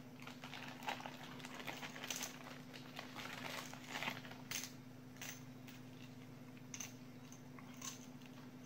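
Clear plastic bag crinkling in irregular soft crackles as a small screwdriver set is pulled out of it. A faint steady low hum runs underneath.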